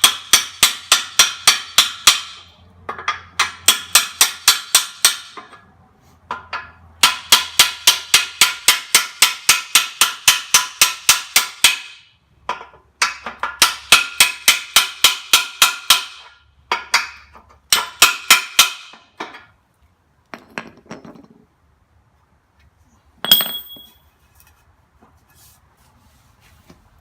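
Hammer blows driving a steel bucket pin out of a backhoe bucket linkage, with a second pin used as the drift. The ringing metal strikes come in quick runs of about five a second with short pauses between, then a few lighter taps and one last sharp, ringing strike near the end.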